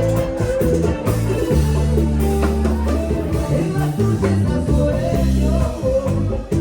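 Upbeat Latin band music with singing over guitar, a strong bass line and drums.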